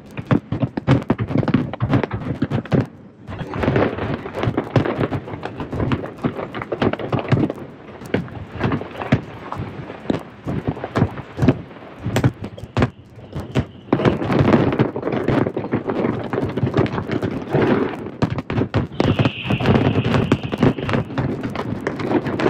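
Aerial fireworks going off in a dense barrage: rapid, overlapping bangs and crackles with hardly a pause. A brief high whistle sounds for about two seconds near the end.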